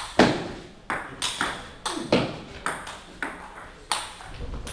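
Table tennis ball clicking off the rubber bats and bouncing on the table in a fast rally, sharp ticks coming in quick pairs every half second or so.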